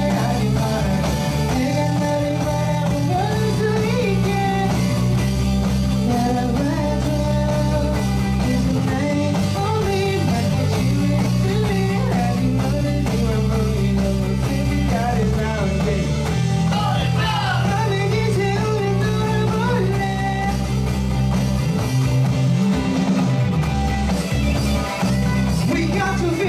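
A band playing a song live, a singer's voice over guitar and a steady bass line.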